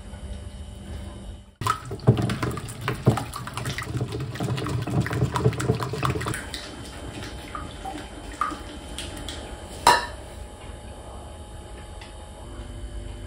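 Oil poured into a ceramic mixing bowl, then a hand whisk beating egg, sour cream and oil batter against the bowl: a rapid run of clinks and scrapes lasting about four and a half seconds. After that comes a quieter, steady background with scattered ticks and one sharp tap near ten seconds.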